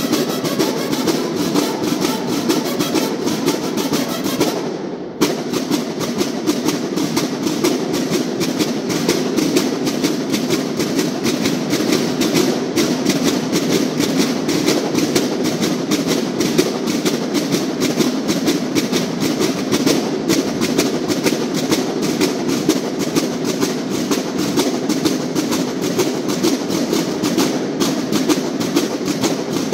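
Marching snare drums of a banda de guerra playing a fast, steady beat of the regulation calls, with a brief break about five seconds in.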